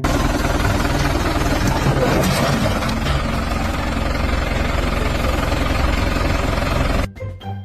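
Loud machinery running steadily with a fast, rough pulsing, cutting off suddenly about seven seconds in, where background music returns.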